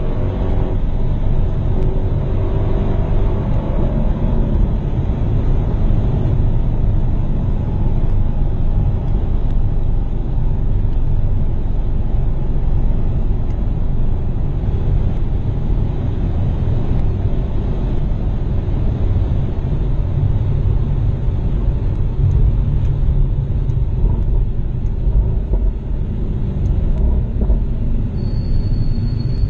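Car driven at speed on a street circuit: engine and road noise as a steady low rumble, with the engine note shifting in pitch over the first few seconds. A brief high tone sounds near the end.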